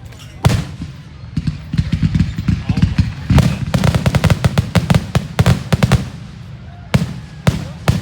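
Aerial fireworks going off during a grand finale: a loud bang about half a second in, then a rapid barrage of shell bursts and crackle for several seconds, then a few single booms near the end.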